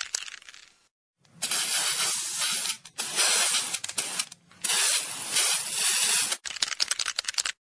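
Aerosol spray paint can: the mixing ball rattles quickly as the can is shaken, then three long hisses of spraying, then a second rattle of shaking near the end.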